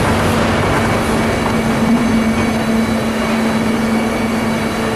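Steady rumbling noise with a constant low hum running through it.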